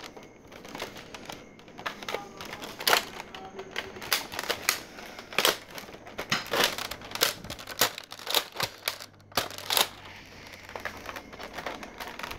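Handling noise: irregular clicks and rustles close to the microphone, several a second, with a few louder clicks through the middle.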